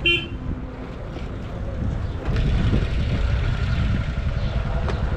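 Motorcycle ride road noise: a steady low engine and wind rumble that grows louder about two seconds in, after a short high beep at the start.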